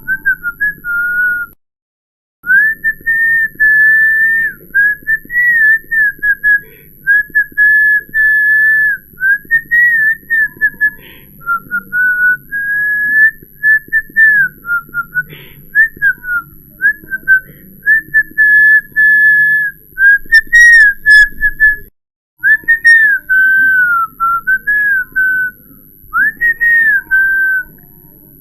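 A person whistling: a single pure note wavering up and down in many short phrases, with the sound cutting out completely for a moment about 2 s in and again about 22 s in.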